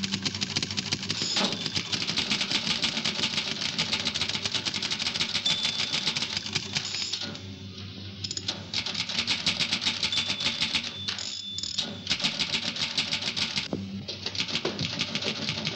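Manual typewriter being typed on quickly: rapid runs of key strikes with a couple of short pauses.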